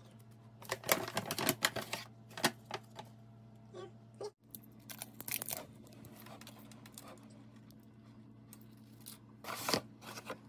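A paper shopping bag and its tissue crinkle, with a run of light clicks and taps as a small fragrance-oil bottle and a plastic plug-in diffuser are handled. The clicks come in bursts about a second in, around five seconds in and near the end.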